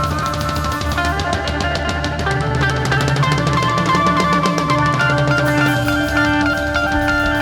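Live rock band playing an instrumental passage: drum kit and guitars with bass, no vocals.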